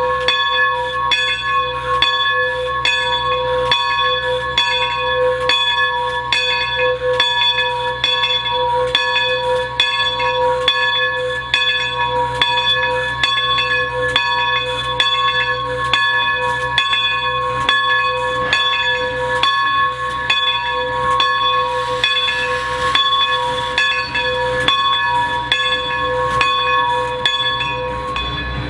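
Bell of Baldwin 2-8-0 steam locomotive No. 40 ringing steadily, about two strokes a second, each stroke ringing on into the next. A short hiss of steam joins it about three-quarters of the way through.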